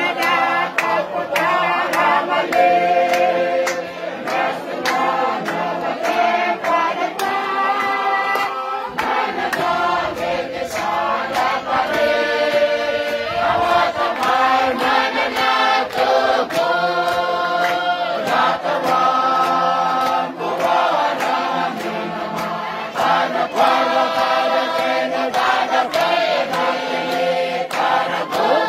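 A choir singing together, many voices in harmony, with a sharp, regular beat of strokes keeping time under the singing.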